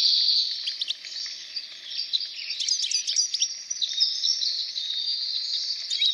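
Several songbirds chirping and singing at once, a dense chorus of quick, high, overlapping notes and trills.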